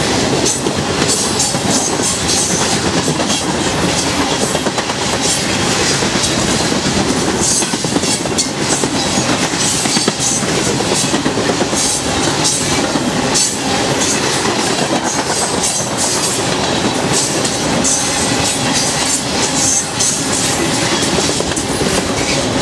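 A freight train of refrigerated boxcars passing close at speed: a loud, steady rumble of steel wheels on rail, with many sharp clicks as the wheels cross the rail joints.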